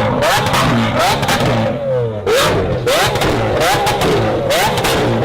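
Supercar engine being revved hard over and over, its pitch climbing and dropping back roughly every 0.7 seconds, loud throughout.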